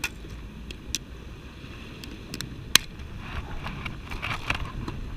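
A plastic tackle box snapping shut with a few sharp clicks, then small handling noises as a soft lure is fitted, over a steady low rumble of sea waves against the rocks.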